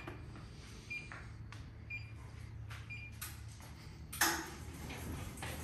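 Signature Fitness stair climber console beeping as its buttons are pressed: four short, high beeps about a second apart, with soft clicks and a louder knock about four seconds in.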